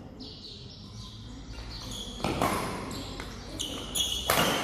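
Badminton doubles rally: rubber-soled court shoes squeaking on the court floor, with two sharp racket hits on the shuttlecock, the louder one a jumping overhead smash near the end.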